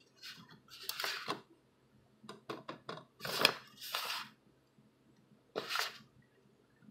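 Kitchen handling noises as a tomato slice is dipped in beaten egg and pressed into cornmeal in bowls. There are several short scrapes and rustles, with a few light clicks about two and a half seconds in.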